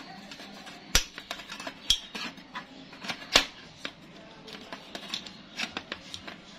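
Metal clicks and knocks as a butane gas canister is handled and pressed into the cartridge compartment of a portable gas stove. There are three sharper knocks: about a second in, just before two seconds, and the loudest about three and a half seconds in, with lighter clicks between them.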